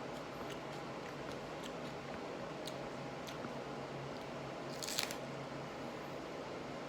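Faint chewing of raw serrano peppers: small wet mouth clicks every second or so, with one louder click about five seconds in, over a steady low hum.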